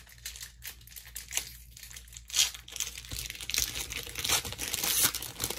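Foil booster pack wrapper crinkling as it is handled and torn open, the crinkling getting denser and louder from about halfway through.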